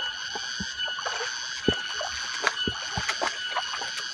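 Water trickling along a small irrigation channel, with irregular soft thumps of footsteps on the wet path beside it and a steady high-pitched drone in the background.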